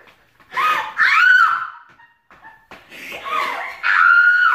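A woman's high-pitched screams of fright: two long screams, one about half a second in and another near the end.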